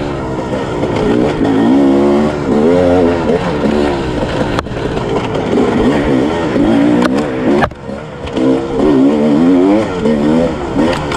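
Sherco 300 SE-R single-cylinder two-stroke dirt bike engine revving up and down over and over as the throttle is worked. There are two sharp knocks and a brief drop in the engine sound at about eight seconds in.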